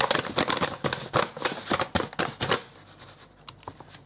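Paper flour bag crinkling and rustling as it is emptied into a mixing bowl and handled, dying away after about two and a half seconds into a few faint clicks.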